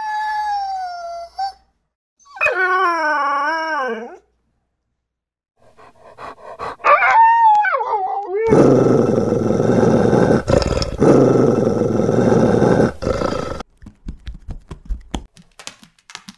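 Dog howling: three long, wavering howls with short gaps between them, then a louder, rough, noisy stretch lasting about five seconds, and a few light clicks near the end.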